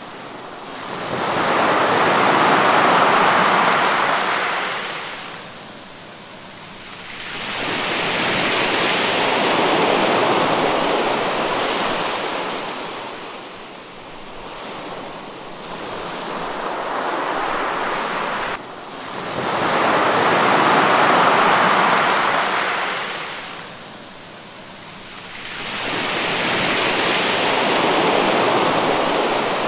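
Ocean surf: waves breaking and washing up the shore, swelling and fading about every six seconds.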